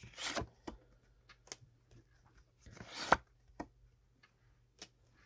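Tarot cards being handled on a table: soft rustles and light clicks, with one louder rustle ending in a sharp snap about three seconds in.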